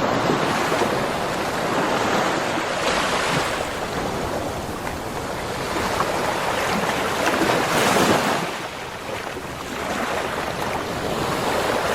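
Ocean surf on a beach shore, waves breaking and washing in continuously, growing louder about three seconds in and again about eight seconds in.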